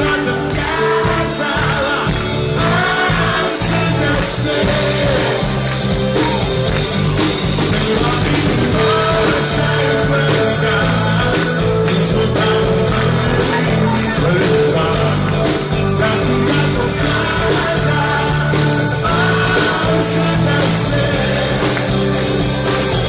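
Live rock band playing through a pub PA: drum kit, electric guitar and a male singer.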